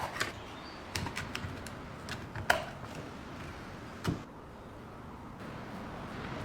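Light clicks and knocks of the antique coffee grinder's parts being handled, irregular through the first few seconds. The sharpest click comes about two and a half seconds in, then a duller knock about four seconds in.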